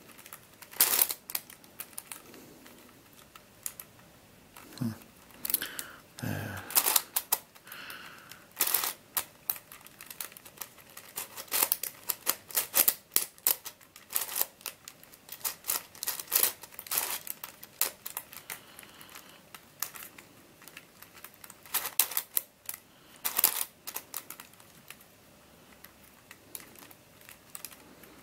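Plastic pieces of an mf8 Radiolarian 2 twisty puzzle clicking and clacking as its faces are turned by hand, in irregular runs of sharp clicks with short pauses between turns while it is being scrambled.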